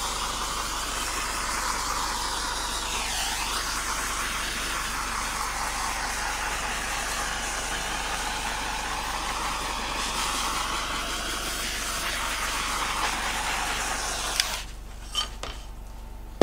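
Bernzomatic FirePoint Creator torch flame hissing steadily as it is passed over wet epoxy to pop surface bubbles. The hiss cuts off suddenly about two seconds before the end, followed by a couple of small clicks.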